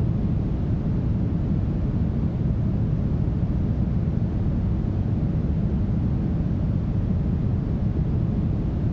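Smoothed brown noise: a steady, deep rush with its weight in the low end and little treble.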